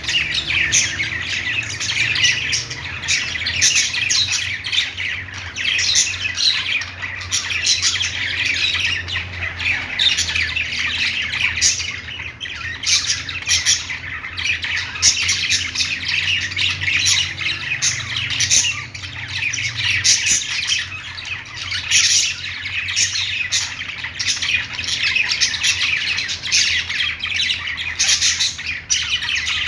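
A group of budgies chirping and chattering nonstop: many short, overlapping squawky calls with no break, over a faint low hum.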